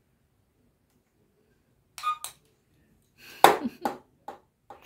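Hard plastic toy pieces clinking and knocking together as they are handled: one brief ringing clink about two seconds in, then a louder cluster of clacks and knocks over the next second or so.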